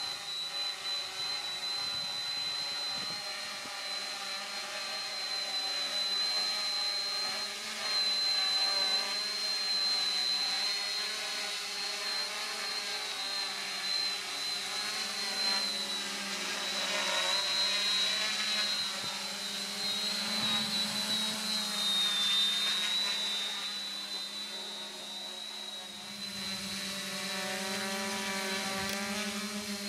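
Hexacopter's six electric motors and propellers running steadily in flight, a constant high whine over a lower hum, the level swelling and easing a little as it manoeuvres.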